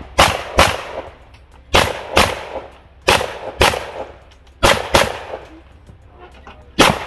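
Pistol fired in quick double taps: nine shots, in pairs about half a second apart, a new pair every second or so, each crack trailing off in a short echo.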